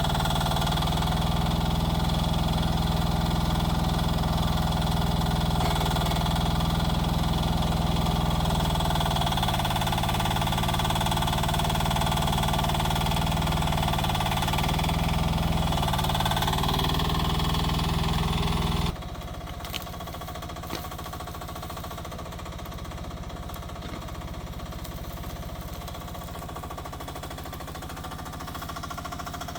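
A mini excavator's engine runs steadily under throttle. About two-thirds of the way in it drops abruptly to a quieter, lower, knocking idle.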